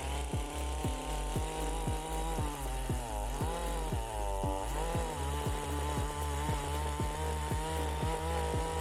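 Two-stroke chainsaw cutting oak, its engine note dipping under load twice near the middle and picking back up, under background music with a steady kick-drum beat.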